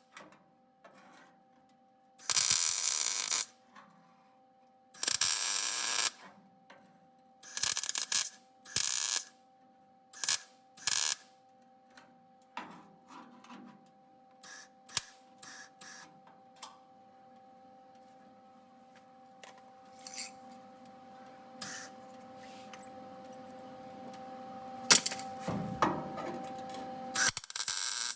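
Welder stitch- and tack-welding sheet-metal panels: repeated bursts of crackling arc, each a second or less with pauses between, over a steady hum.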